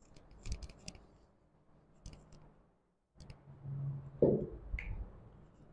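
A few faint, scattered clicks and taps, with a short low hum a little before four seconds in.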